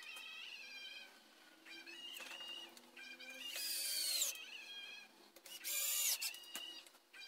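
Cordless drill driver running in two short bursts about two seconds apart, each about a second long, its motor whine dropping in pitch under load as it bites into the wooden batten.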